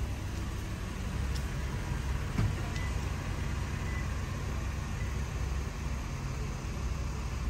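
Toyota Crown hybrid (220 series) creeping past at low speed, a steady low rumble, with a single short knock about two and a half seconds in.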